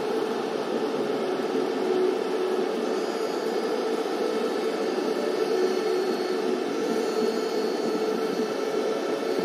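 Steady hiss-like noise with a faint hum, even and unchanging.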